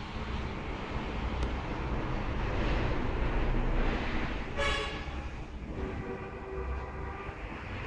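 A horn sounding twice, a short blast and then a longer steady one, over continuous rumbling background noise.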